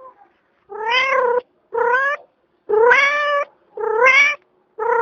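Cat meowing five times in a row, about a second apart, each meow rising slightly in pitch and then holding.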